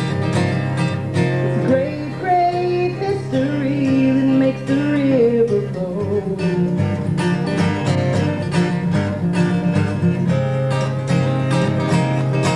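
Live folk song on strummed acoustic guitar. A woman's singing voice carries over it through about the first half, then the guitar goes on alone with steady strumming.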